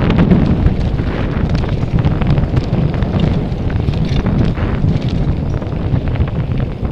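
Wind rushing over an action camera's microphone on a fast downhill mountain bike run, with many short clicks and rattles from the bike over rough trail.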